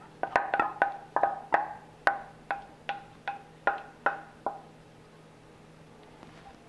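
A wooden spatula knocking and scraping against a stainless steel bowl, about a dozen quick knocks each with a short metallic ring, as thick mango purée is scraped out. The knocks stop about four and a half seconds in.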